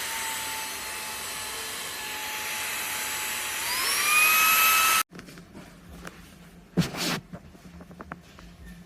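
Xiaomi Mijia handheld cordless vacuum cleaner's motor running with a steady whine, which rises in pitch and gets louder about three and a half seconds in, then cuts off suddenly about five seconds in. Faint knocks and a short clatter follow.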